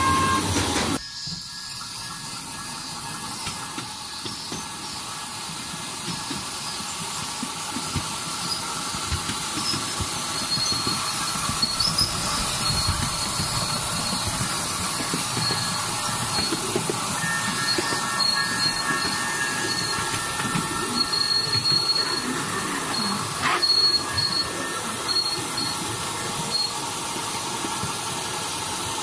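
Ride-on miniature railway train running: small steel wheels rolling and clicking over the rails under a steady hiss, louder for the first second as it comes off a small steel bridge. High thin squeals come and go, from the wheels on the curves.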